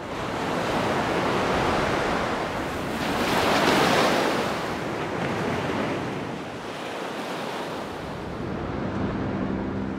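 Ocean waves: a steady rush of surf that swells about three to four seconds in. Near the end, a low steady hum of a few tones joins it.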